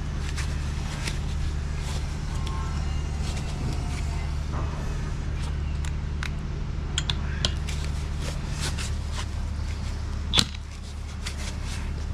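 Steady low mechanical drone with scattered small metal clicks of alternator parts being handled, and one sharp clack about ten seconds in.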